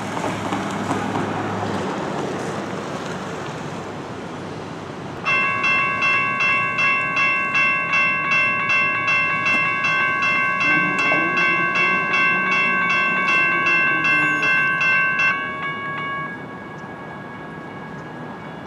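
Road traffic noise at first. About five seconds in, the crossing's General Signals electronic bells start ringing, a high ding repeating about twice a second for about ten seconds. They stop as the gates come down, as this crossing's bells ring only until the gates lower.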